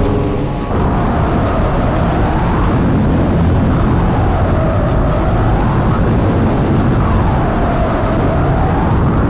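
Harsh noise music: a loud, dense wall of rumbling noise with a tone that swoops down and back up every few seconds. It drops briefly and comes back in full just before a second in.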